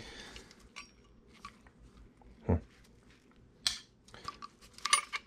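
Handling noise from a CYC X1 Pro Gen 2 mid-drive e-bike motor being turned over in gloved hands: scattered soft clicks and knocks of its metal casing, bracket and cables, with a low knock about halfway through, a sharper click near four seconds and a quick run of clicks near the end.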